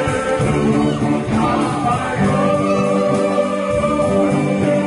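Live gospel hymn played by a small church praise band, with electric guitars and a drum kit, and voices singing.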